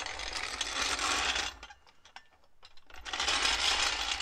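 Loose metal jingling and rattling in two bursts, each about a second and a half long, with a low rumble under them.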